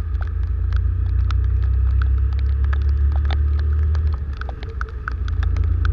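Raindrops ticking irregularly on a motorcycle-mounted camera while riding in heavy rain, over a steady low rumble from the moving Honda motorcycle and wind. The rumble eases about four seconds in and rises again near the end.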